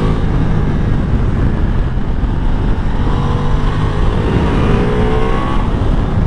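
Ducati Multistrada V4 Pikes Peak's V4 engine pulling hard, its pitch rising as it revs through third gear, then dropping as it shifts up to fourth near the end, with wind rushing over the onboard microphone.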